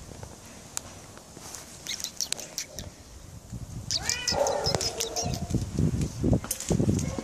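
Domestic tomcat meowing once, a bending call of about half a second, about four seconds in, meowing to be let out. Sharp clicks and low knocks sound around it.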